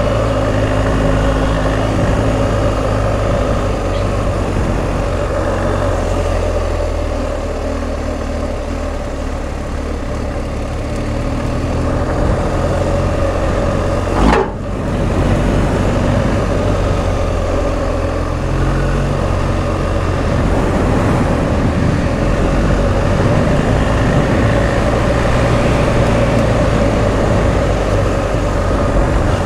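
BMW R1250 GS Adventure's boxer-twin engine running steadily, with one brief knock about halfway through.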